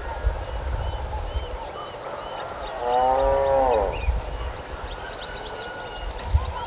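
Rural outdoor ambience with many small birds chirping. About three seconds in comes one loud, drawn-out animal call lasting about a second and dropping in pitch at its end. A quick high bird trill and a short thump follow near the end.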